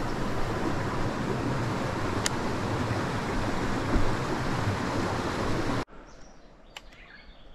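Steady rushing outdoor noise, which cuts off abruptly about six seconds in. It leaves a much quieter background with a few sharp clicks.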